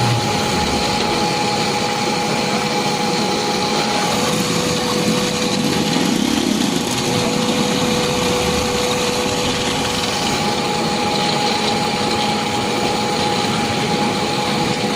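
A machine running steadily, with a steady whine held over a dense mechanical noise.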